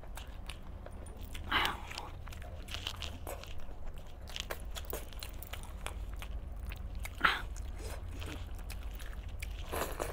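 Close-up eating sounds: a man biting and chewing chicken cooked in green masala gravy, with many small wet clicks and three louder bites, about a second and a half in, about seven seconds in and near the end, over a low steady hum.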